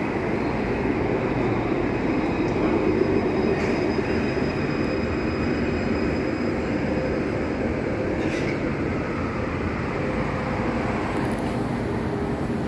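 Electric street tram running along its tracks past the listener: a steady low rumble, mixed with street traffic.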